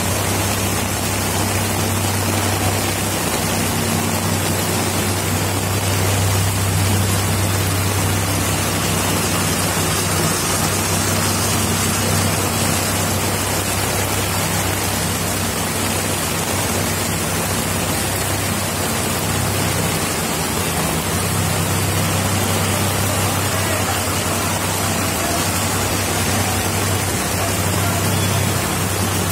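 Steady rushing noise of heavy rain, with a vehicle engine's low hum underneath that briefly fades about two-thirds of the way through.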